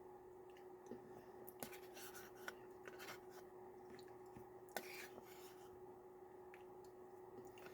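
Near silence: faint, scattered clicks and scrapes of a spoon in a plastic yogurt cup during eating, over a low steady hum.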